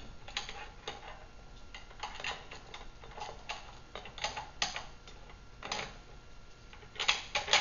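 Irregular metallic clicks and taps as a metal sweeper handle arm and its bolts and washers are fitted together by hand, with a quick cluster of louder clicks near the end.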